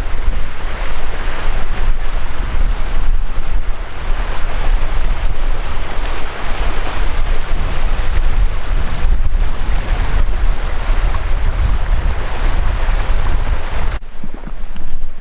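Wind buffeting the microphone: a loud, steady rushing with a deep rumble, which drops away sharply about a second before the end.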